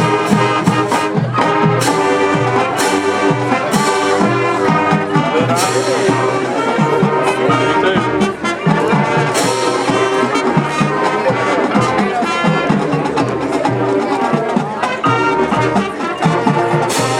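High school marching band playing loudly: full brass section sustaining chords, with drum hits and cymbal crashes, in an arrangement of Hollywood Western film music.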